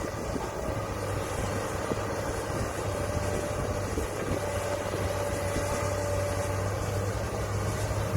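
Diesel engine of heavy earthmoving machinery (excavator or bulldozer) running steadily under work, a constant low drone with a faint whine over it.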